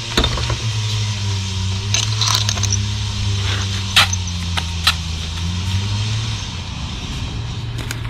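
An engine running steadily at low speed, stopping about six seconds in, with a few sharp metallic clinks over it, the loudest about four seconds in.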